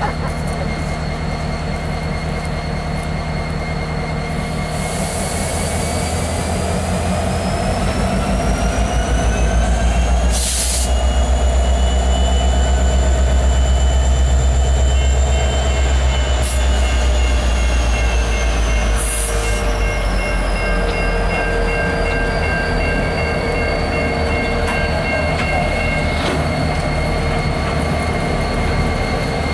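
Norfolk Southern EMD SD70ACe diesel locomotives rolling slowly past at close range, their engines giving a deep, steady rumble that is loudest about halfway through. Thin, high tones above it slowly rise and then fall in pitch, with a few sharp clicks.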